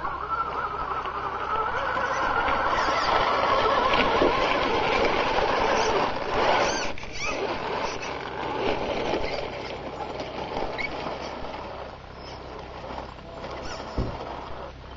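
Radio-controlled Tamiya Scania R620 model truck driving over gravel: the drive motor and gearbox whine while the tyres crunch on loose stones. The sound grows louder as the truck approaches, is loudest a few seconds in, then eases, with a single knock near the end as the truck comes close.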